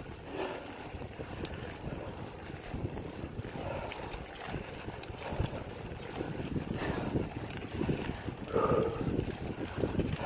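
Wind buffeting the microphone of a moving recumbent bike, an uneven low rumble, with the tyres rolling on the paved trail beneath it.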